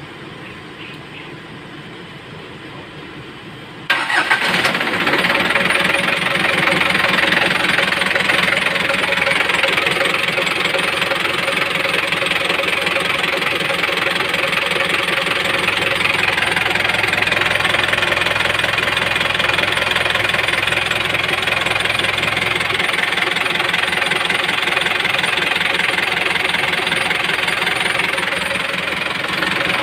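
Isuzu 4BE1 four-cylinder diesel engine starting about four seconds in, then running at a steady idle.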